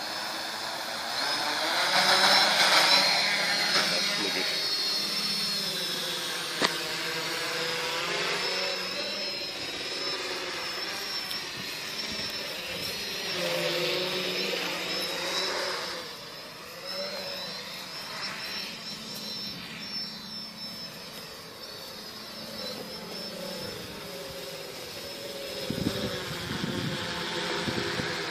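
Small quadcopter's electric motors and propellers whining as it lifts off and flies overhead. The whine is loudest at lift-off about two seconds in, then wavers and sweeps in pitch and loudness as the drone climbs and manoeuvres. There is a single sharp click about six and a half seconds in, and a few low knocks near the end.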